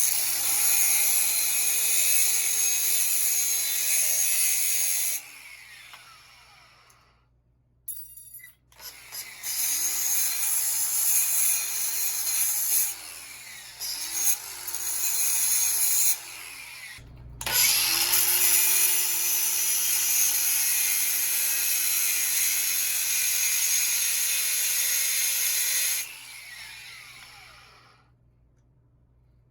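Angle grinder cutting a steel vending-machine coil spring, run in three bursts: a short one of about five seconds, then two longer ones, each ending with the disc spinning down in falling pitch.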